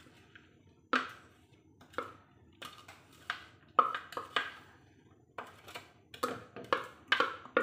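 A plastic blender jug knocking and tapping against the rim of a metal cooking pot as blended vegetables are shaken out of it. It makes about ten sharp, irregular knocks, coming closer together near the end.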